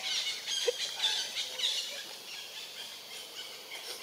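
Young macaque squealing: a quick run of short, high-pitched squeals in the first two seconds, with one short lower call among them, then fainter.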